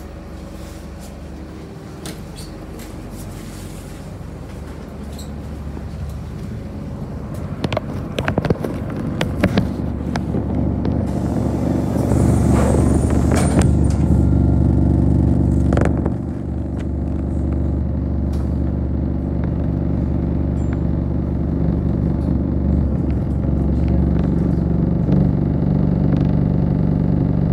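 City bus engine running while the bus stands at a stop, heard from inside the cabin. A few sharp clicks and knocks come about eight to ten seconds in. The engine hum grows louder around twelve seconds in and then runs steadily.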